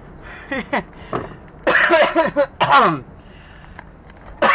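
A man coughing and hacking to clear his throat, a few short throat sounds and then two loud coughs about two seconds in, with another near the end; he blames the hacking on bad allergies.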